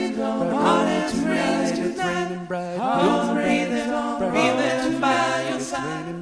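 Acoustic guitar song with a man's singing: long held vocal notes that slide up into each phrase, over the guitar's accompaniment.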